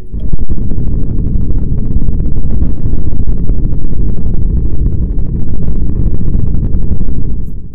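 Loud, low rumbling noise with no clear pitch, starting abruptly just after the start and dropping away near the end.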